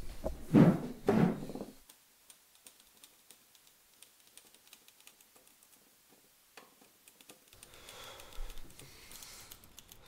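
Two heavy thumps in the first two seconds, then the keys of a red portable manual typewriter being typed, faint, irregular clicks.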